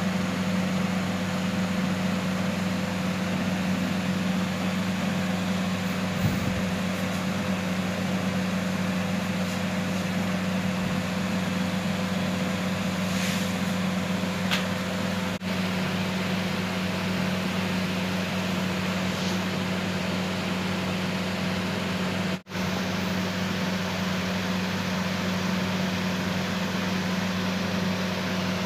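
A steady low mechanical hum with a faint hiss over it. It cuts out for an instant about 22 seconds in, then carries on unchanged.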